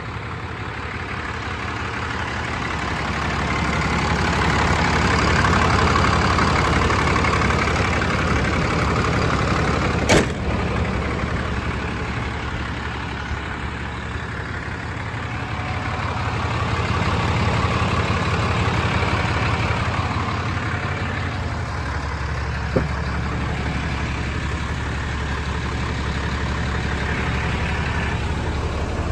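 Sterling Bullet's 6.7-litre Cummins diesel engine idling steadily, the sound swelling and fading slowly. A sharp click about ten seconds in and a lighter one near the end.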